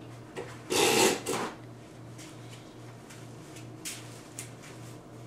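Handling noise at a counter: a short burst of rustling and clatter about a second in, then a few light taps, over a faint pulsing low hum.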